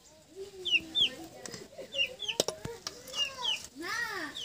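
Chickens clucking, mixed with high, short, falling peeps that come two at a time, and a longer rising-and-falling call near the end. A couple of sharp clicks about halfway through, like a metal ladle knocking the aluminium rice pot.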